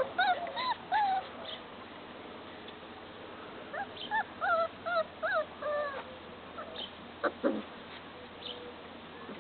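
Puppies whining in two bouts of short rising-and-falling whines, one in the first second and another from about four to six seconds in, with a short sharp yelp-like sound a little after seven seconds. The whining fits pups restless to get out of their pen.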